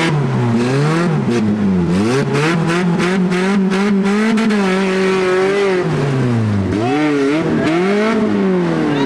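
Off-road vehicle's engine revving up and down over and over, held at high revs for a stretch in the middle, with the throttle dropping and picking up again several times.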